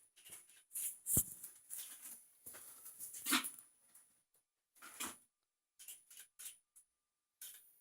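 Footsteps scuffing and crunching on loose rubble and backfill in irregular bursts, with one heavier thump about a second in.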